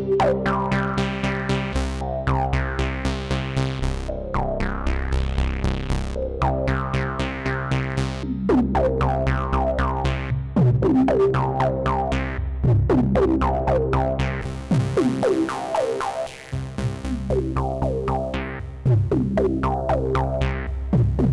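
Analogue Solutions Polymath paraphonic analog synthesizer playing a sequenced pattern: short plucky notes with quick downward filter sweeps over sustained bass notes. The bass drops out briefly about two-thirds of the way through, then returns.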